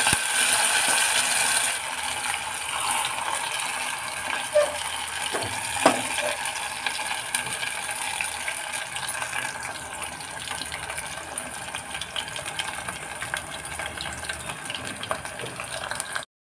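Marinated chicken drumsticks sizzling and crackling as they shallow-fry in hot oil in a steel pan, loudest for the first couple of seconds, then settling into a steady sizzle. Two light knocks come about four and a half and six seconds in.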